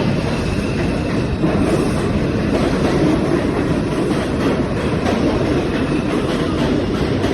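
New York City Subway train running along the track as it pulls into a station: a steady, loud rumble of wheels on rail.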